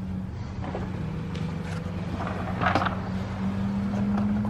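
A steady low mechanical hum, like an idling motor, runs throughout. Over it are a few light plastic rustles and clicks as a panel air filter is set into an engine airbox.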